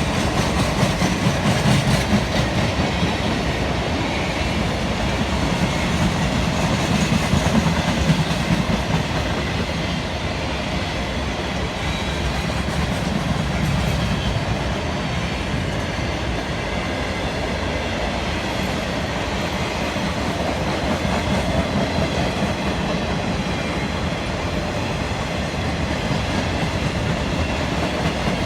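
Norfolk Southern maintenance-of-way train rolling past, its rail cars making a steady rumble, a little louder in the first several seconds.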